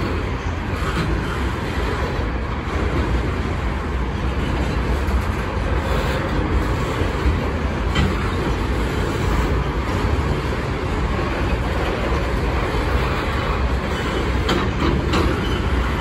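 Union Pacific weed sprayer train's long custom railcars rolling along the track: a steady rumble of steel wheels on rail, with a few sharp clicks about halfway through and again near the end.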